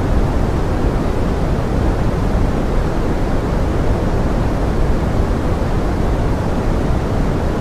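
Steady pink noise blended with forest rain: an even hiss, heaviest in the low range, that stays the same throughout.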